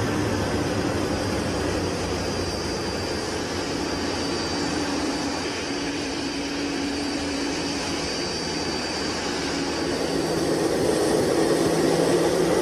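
Jet aircraft engines running steadily during a landing, a broad rush with a steady high whine, growing a little louder near the end.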